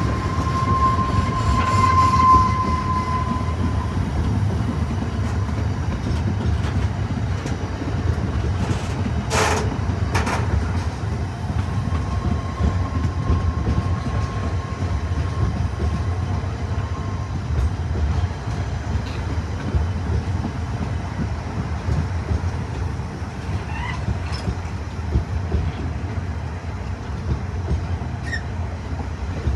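A long rake of enclosed double-deck car-carrier wagons rolling past: a steady low rumble of wheels on rail. A thin squeal sounds near the start and again about halfway through, and there is a single sharp clank about nine seconds in.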